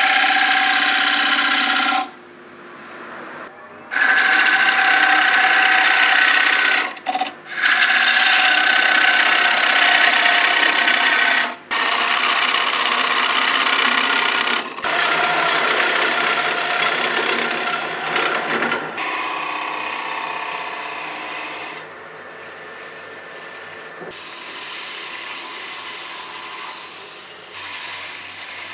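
A tool rasping against wood in long bouts, with a pause of about two seconds near the start and brief breaks around 7 and 11 seconds; the rasping grows softer after about 19 seconds.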